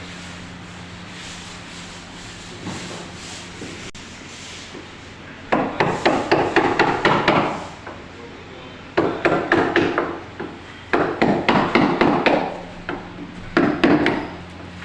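Hammer striking wood in bursts of quick repeated blows, about four bursts of one to two seconds each, starting about five seconds in, over a steady low hum.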